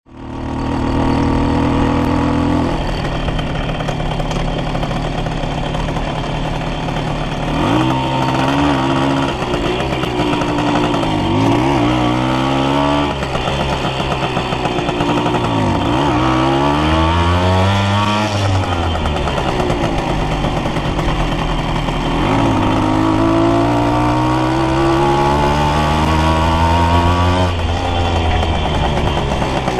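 1979 Simson S50 B2 moped's 50 cc single-cylinder two-stroke engine running under way, steady at first, then rising in pitch in several sweeps as it accelerates, dropping back at each change of its three-speed gearbox. Near the middle it eases off and then picks up again.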